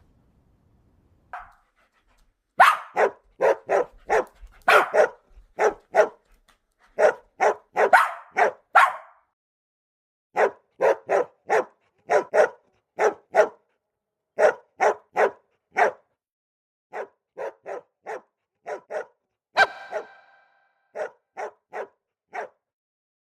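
Golden retriever barking in quick runs of short barks, bout after bout with short pauses between; the last barks, in the second half, are quieter.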